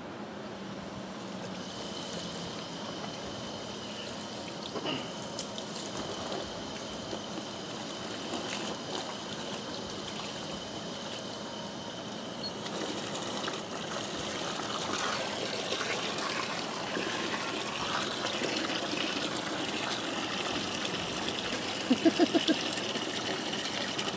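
Water from a garden hose running into a Rothco cotton canvas bucket: a steady splashing hiss that grows louder and fuller about halfway through as the bucket fills.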